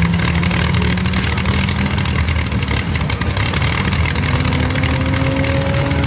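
Rolls-Royce Merlin V12 aero engine running steadily on an open display stand, its engine speed edging up slightly in the last couple of seconds.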